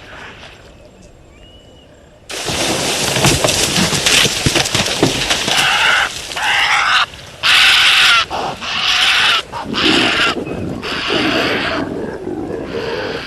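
Loud animal roaring and snarling in repeated bouts, starting suddenly about two seconds in after a quieter stretch.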